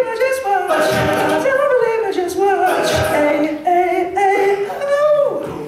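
Male a cappella group singing: a solo voice over backing voices, with short low beats underneath. Near the end a voice slides down in pitch.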